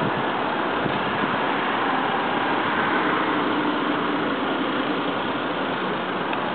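Steady rushing noise from riding a bicycle along a city street: wind on the microphone mixed with the sound of street traffic.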